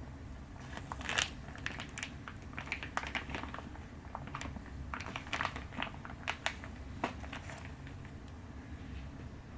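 Irregular light clicks, taps and crinkles of small objects being handled, busiest in the first seven seconds, over a low steady hum.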